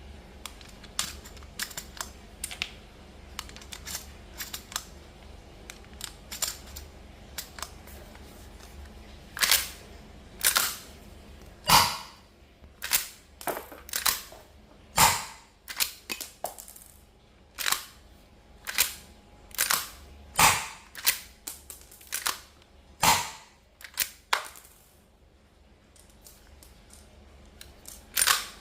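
Gas/CO2-powered airsoft replica of a Winchester Model 1894 lever-action rifle: light clicks at first, then sharp reports about once a second for roughly fifteen seconds, with lighter clicks between them.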